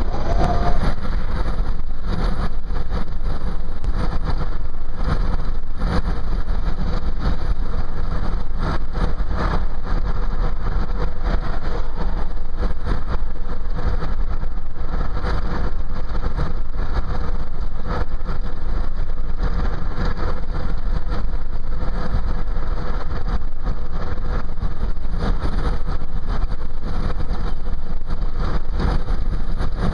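Steady cabin noise of a car driving at highway speed: low engine and road rumble heard from inside the vehicle.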